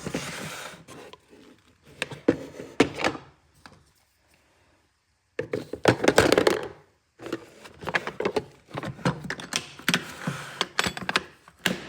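Tools and small items being handled and set down: a run of knocks, clicks and clatter mixed with rustling, stopping for about a second and a half midway before starting again.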